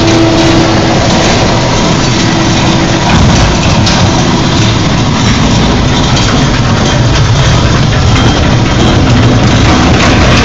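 A 1998 Challenger hopper-fed grinder running loud and steady, engine and grinding mechanism together, with a few sharper knocks as material goes through.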